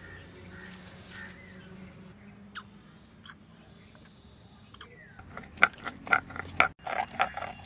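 A few faint clicks over a low hum, then, from about five seconds in, a stone muller rocked fast on a sil-batta grinding slab, crushing spices into a paste: a rapid run of loud, rough scraping and knocking strokes, about three or four a second.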